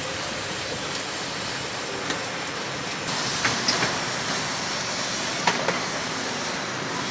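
Steady street traffic noise, with a few light clicks and knocks about halfway through.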